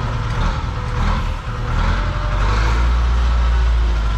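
Zetor 7245 tractor's four-cylinder diesel engine running, heard from inside the cab, with a brief dip about a second and a half in and then a heavier, steady drone.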